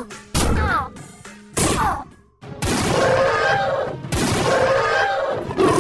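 Cartoon sound effects over music: two sudden hits, each followed by a falling pitch slide, then a longer crashing clatter from about two and a half seconds in.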